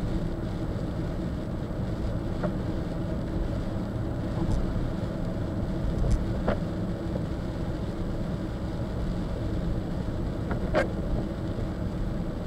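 Steady low road and engine rumble of a car driving, heard inside the cabin. A few short sharp ticks are scattered through it, the clearest near the end.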